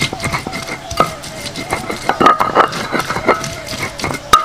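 Stone pestle scraping and knocking on a stone grinding slab (batu giling) as wet spice paste is ground by hand, in quick irregular strokes, with a sharper knock near the end.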